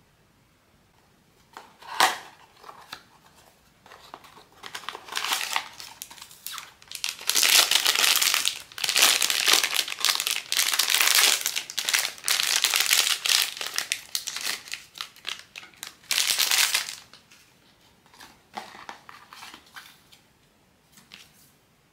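Blind box packaging wrapper crinkling and crumpling as it is opened by hand. The crinkling is loudest through the middle stretch and thins to scattered crinkles near the end. A single sharp click comes about two seconds in.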